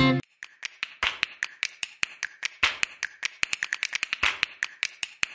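Guitar music cuts off just after the start, followed by a rapid, irregular run of sharp clicks and taps, several a second.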